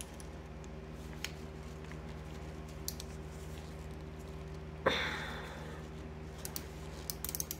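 Ratchet screwdriver and small metal sewing-machine parts handled as a stubborn screw is worked loose: scattered light clicks, and one sharp metal-on-metal clink that rings briefly about five seconds in, then a quick run of small clicks near the end. A steady low hum sits underneath.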